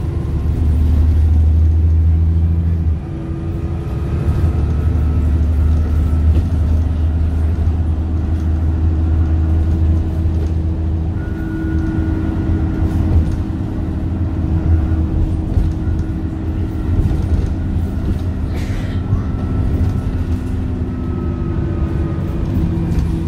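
A Dennis Trident II double-decker bus's Cummins ISC diesel engine and ZF Ecomat automatic gearbox running as the bus drives along, heard from the upper deck as a steady deep drone with faint whining tones above it. The engine note drops sharply about three seconds in.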